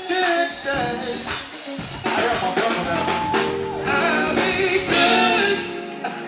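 A live band playing an up-tempo song with drums, with sung lines held over it. The bass and drums drop out about six seconds in as the song ends.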